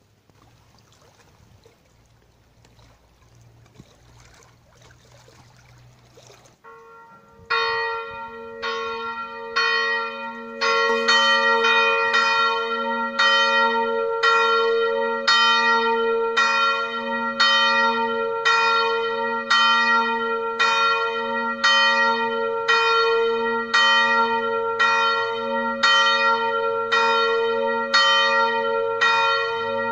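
Church bells in a stone bell tower ringing for noon. They start about a quarter of the way in after faint outdoor noise, then strike steadily about once a second, each stroke ringing on into the next.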